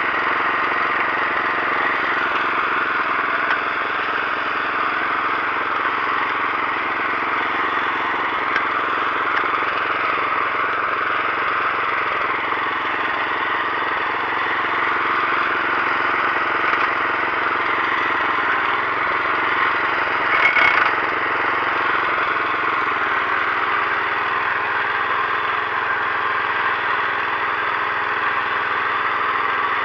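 Engine of a heavy Agros walk-behind tractor running steadily under load as it pulls a mouldboard plough through hard, dry soil in second gear. A brief louder knock comes about two-thirds of the way through.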